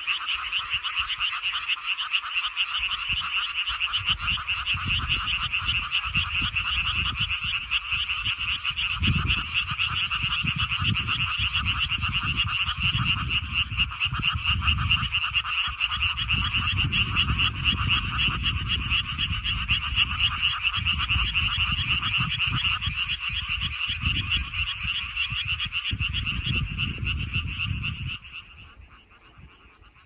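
A dense chorus of frogs calling from the water, a fast, continuous pulsing croak that dies away sharply about two seconds before the end. An uneven low rumble comes and goes underneath.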